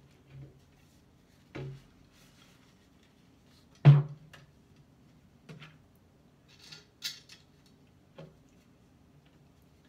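Handling noise of a blunderbuss barrel and wooden stock being fitted together: scattered light knocks and one sharp knock about four seconds in. A short clatter of clicks follows around seven seconds, as of small tools being picked up from a wooden tabletop.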